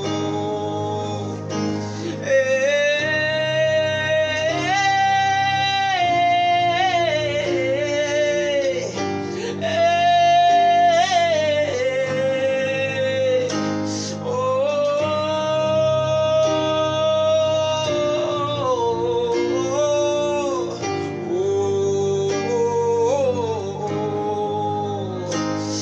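Gospel song: acoustic guitar accompaniment under a singer's long held, wordless notes that slide from pitch to pitch.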